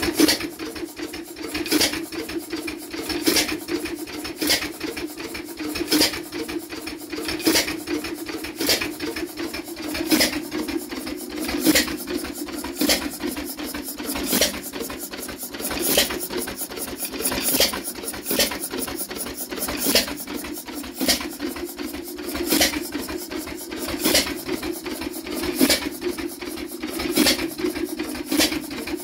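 International Harvester Tom Thumb 1 hp hit-and-miss engine running, its valve gear and flywheels clattering steadily with a louder bang about every second and a half as it fires and then coasts through missed strokes.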